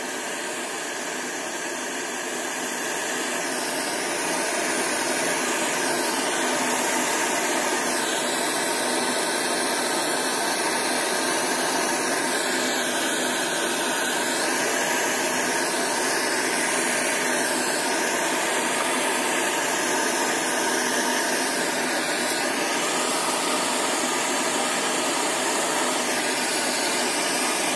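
Gas soldering torch burning with a steady hiss while it heats a copper pipe joint for soft soldering with tin solder wire; it grows a little louder a few seconds in.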